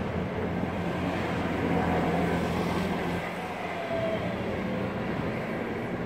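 Steady city traffic noise: a low rumble and hum of vehicle engines, with no single event standing out.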